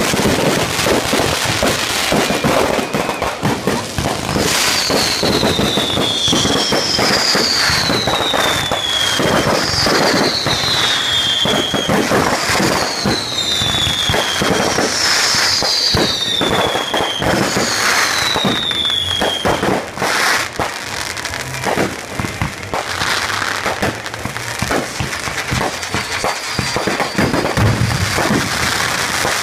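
Fireworks display: continuous crackling and banging of shells. From about four seconds in, a run of about eight whistles, each falling in pitch, comes roughly every two seconds and stops about twenty seconds in.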